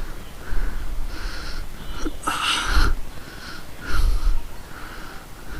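A person breathing audibly close to the microphone in a run of short breaths, with one louder hissing breath about halfway through and some low rumble underneath.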